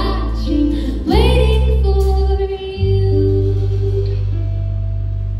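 Live band finishing a song: a female voice sings over acoustic guitar, electric guitar, bass and drums, then about two seconds in the last chord is held and slowly rings out.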